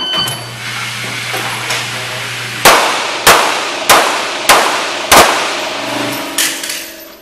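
A short electronic beep, then five handgun shots about two-thirds of a second apart, each ringing off the concrete walls of an indoor range, with quieter knocks after them. A low steady hum runs under the first six seconds.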